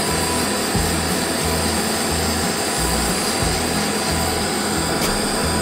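Steady rushing roar of a propane gas burner running at full flame, with green coffee beans rattling inside a ceramic roaster held over it. One sharp click near the end.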